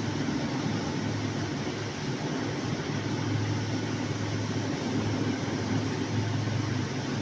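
A machine running steadily: a constant low hum with an even hiss over it, unchanging throughout.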